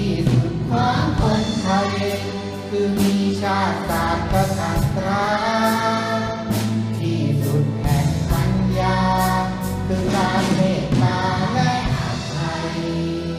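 A man singing a slow song with live orchestral accompaniment, holding long notes between phrases.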